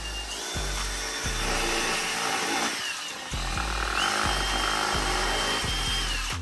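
A handheld cordless power drill running in two long bursts, its whine stepping up in pitch as it speeds up and dropping away as each burst ends.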